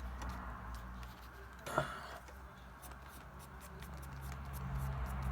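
Watercolour paintbrush dabbing and scratching lightly on paper over a low steady hum, with one short sharp tap about two seconds in.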